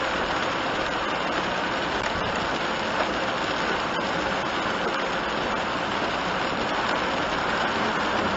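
Steady heavy rain on a kei van's roof and windshield, heard from inside the cabin while driving, mixed with the hiss of tyres on the flooded road.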